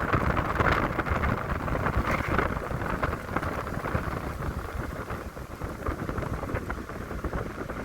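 Wind buffeting the microphone over the road noise of a moving car, an uneven rumbling rush, a little louder in the first few seconds.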